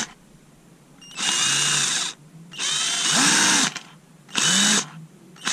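12 V cordless drill running unloaded in three short bursts, the motor whining up in pitch as the trigger is squeezed and winding back down as it is released, a fourth burst starting at the end.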